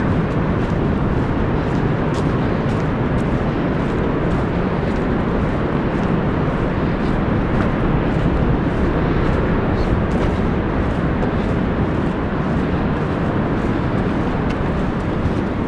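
Steady low roar of Pacific Ocean surf breaking on the shore, an even, unbroken rumble.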